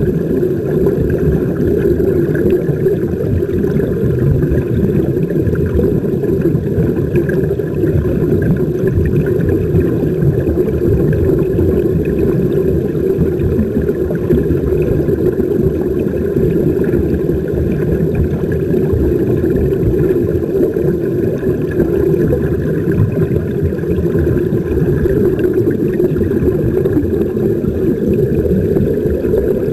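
Steady, muffled low rumble of underwater noise picked up by a camera held beneath the sea surface, with no distinct events.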